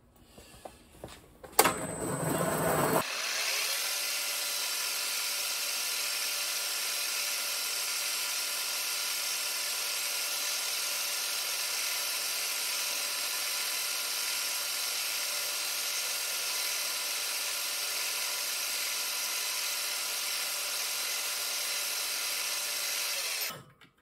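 Old vertical milling machine's spindle running steadily while its end mill takes passes to widen a slot, a hum with a steady whine. It comes up about three seconds in after a click and stops just before the end.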